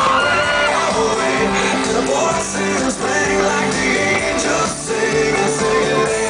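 Loud pop music with singing.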